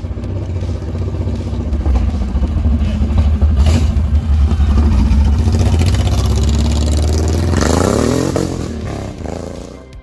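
Cruiser motorcycle engine rumbling at low revs, then revving up as the bike pulls away about three-quarters of the way through, its note rising and then fading.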